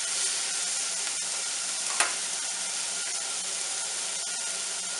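Marinated chicken breasts sizzling on a hot ridged grill pan over medium heat, just turned over, with small crackles throughout. A single sharp click comes about two seconds in.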